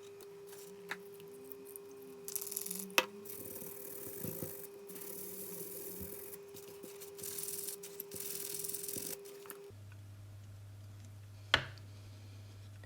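Cleaning flux off a smart plug's circuit board around a newly soldered capacitor: short stretches of scrubbing over a steady hum that stops about ten seconds in. There is a sharp click about three seconds in and another, louder one near the end.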